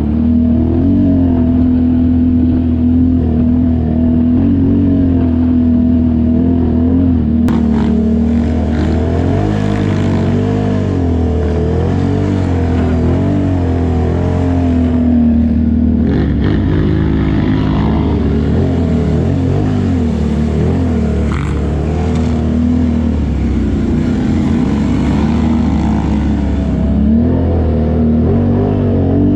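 ATV engine running as the quad is ridden along a trail, its pitch rising and falling with the throttle, with added rushing noise through the middle stretch.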